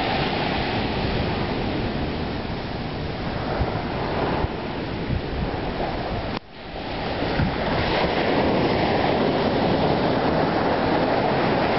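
Sea surf and wind on the microphone: a steady rushing noise. It drops out suddenly about six seconds in and comes back over a second or so.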